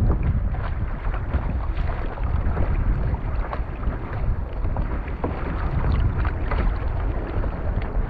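Strong wind buffeting the microphone in a steady low rumble, with choppy lake water splashing and slapping against the kayak's hull in irregular short splashes.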